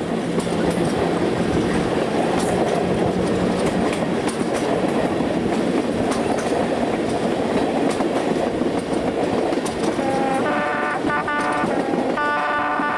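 British Rail 4-VEP slam-door electric multiple unit running on the track, heard through an open window: steady wheel and running noise with light rail-joint clicks. Near the end a train horn sounds twice.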